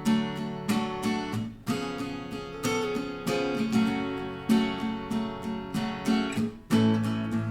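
Acoustic guitar strumming chords, each strum starting sharply and ringing out, with a short break just before the end.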